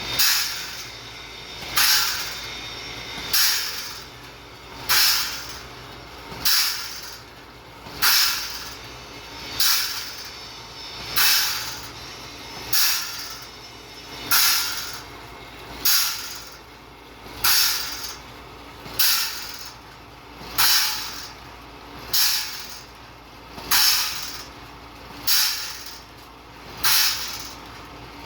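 Sawmill saw blade sharpener grinding tooth after tooth: a short hissing grind about every one and a half seconds, each swelling and then cutting off sharply, over the machine's steady running.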